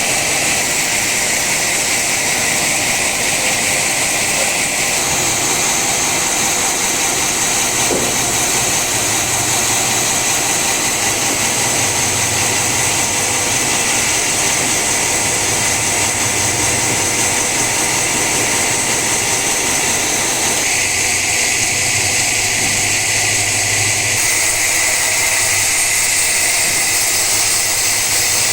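Sawmill saw cutting through a teak log: a loud, steady high hiss of the blade in the wood, with the machine's low hum underneath.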